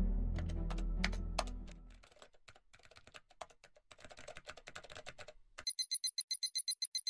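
Low film-score music fading out over the first two seconds, then quick clicking of computer keyboard typing. About two-thirds of the way in, a rapid high electronic beeping starts, several beeps a second, a message-alert sound effect.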